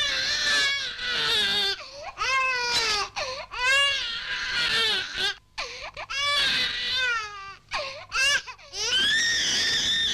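Baby crying hard: a run of about eight loud, high wailing cries, each about a second long, rising and falling in pitch, with short gaps between.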